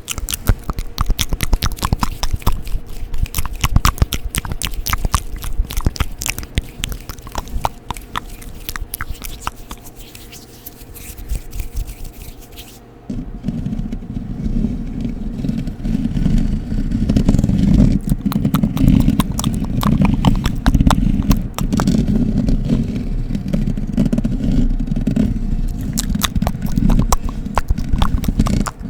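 Close-miked ASMR scratching: a fast, dense run of crisp scratches and clicks, changing about thirteen seconds in to a heavier, deeper rubbing scratch.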